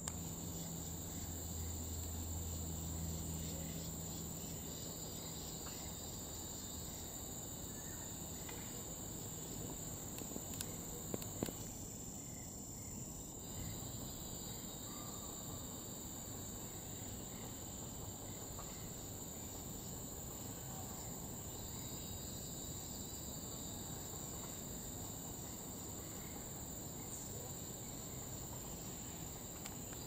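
Steady high-pitched drone of an insect chorus, with a second, higher buzzing band that fades in and out.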